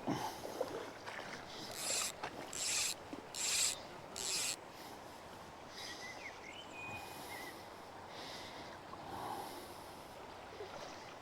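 Close rustling and rubbing against the microphone, with a run of four or five short, loud swishes about two to four and a half seconds in, over a steady soft hiss.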